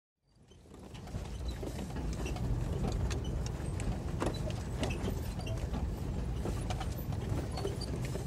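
Vehicle driving on a rough dirt road, heard from inside the cab: a steady low rumble with frequent rattles and knocks. It fades in just after the start.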